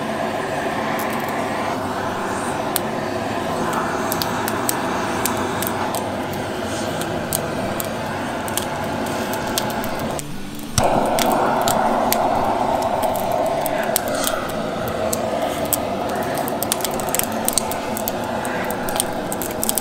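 Handheld gas torch hissing steadily as its flame is held against pine firewood to light it. The flame cuts out for about half a second just after the middle and comes back louder. Short sharp crackles are scattered throughout.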